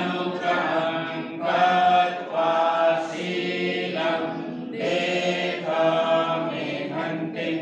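Buddhist devotional chant sung by a group of voices in unison, in held, melodic phrases about a second long.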